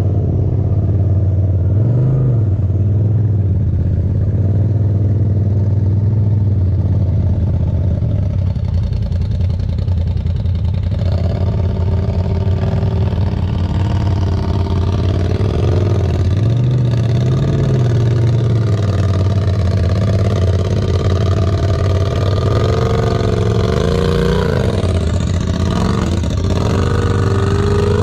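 Side-by-side UTV engine running at low revs while crawling over rocks. It hums steadily, swells briefly twice, and revs up and down several times near the end.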